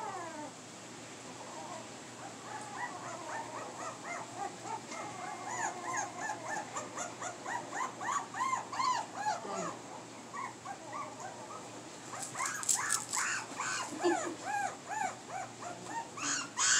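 Several American Pit Bull Terrier puppies whining and yelping at once: many short rising-and-falling cries, getting louder over the last few seconds.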